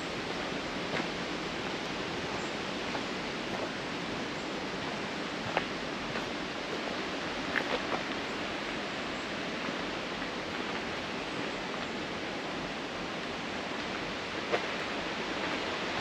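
Rushing water of a mountain stream's rapids, a steady hiss, with a few faint clicks here and there.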